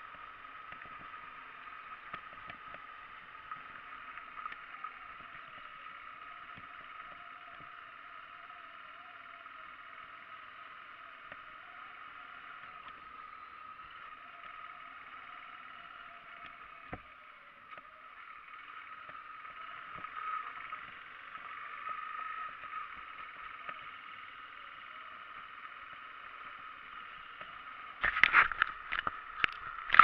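Motorcycle running along a gravel road, heard as a steady hum with a fainter wavering tone beneath it. About two seconds before the end comes a burst of loud knocks and rattles as the camera is handled.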